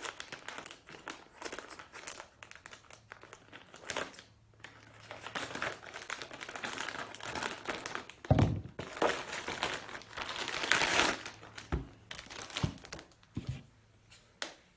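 Courier package wrapping being handled and opened: crinkling and rustling with tearing, a heavy thump about eight seconds in, then a louder stretch of rustling.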